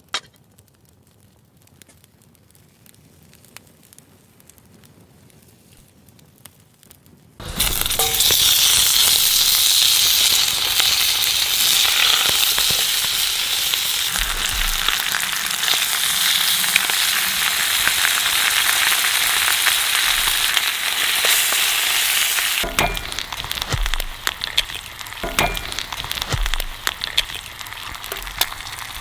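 Food frying in a hot pan over a small wood fire: faint ticks at first, then a loud sizzle starts suddenly about seven seconds in as the food goes into the pan, easing a little near the end.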